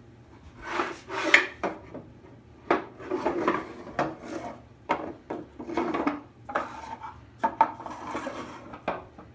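Wooden drawers of a shop-built drill press table sliding open and shut, wood rubbing on wood, with several sharp knocks as they bottom out or close.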